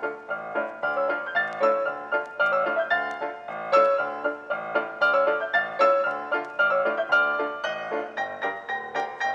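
Background instrumental music, a quick run of struck keyboard notes.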